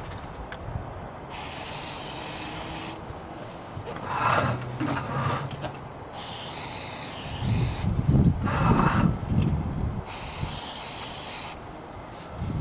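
Aerosol can of parts cleaner sprayed in three hissing bursts of about a second and a half each. Louder low rushing sounds come between the bursts, about four seconds in and again about eight seconds in.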